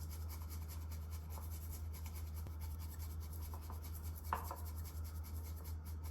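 Matcha and milk being whisked briskly: a fast, scratchy swishing of whisk strokes, with a light clink about four seconds in.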